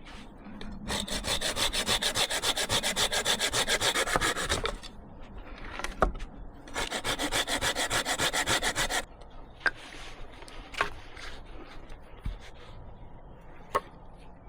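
Hand saw cutting through wood for firewood: two runs of quick, even back-and-forth strokes with a short pause between, then a few sharp cracks of wood.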